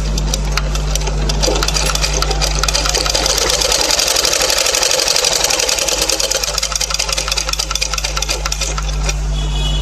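Domestic sewing machine stitching a seam through the layered kurta fabric at the neckline: a fast, even clatter of needle strokes.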